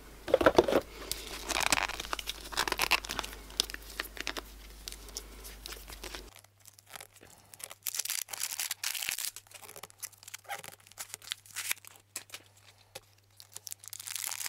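Foil blind-bag wrapper being torn open and crinkled by hand, with many small sharp clicks and rustles.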